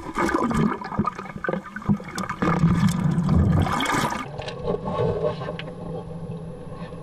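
Seawater splashing and sloshing right at the microphone as broken whitewash washes around it in shallow surf, with many sharp, irregular splashes in the first few seconds and a calmer wash after that.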